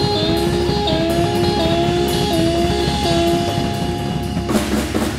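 Live blues band playing guitar, bass and drums. The guitar repeats a short phrase of bent notes about every two-thirds of a second over the rhythm section. About four and a half seconds in, the drums and cymbals break into a run of hard hits as the tune comes to its end.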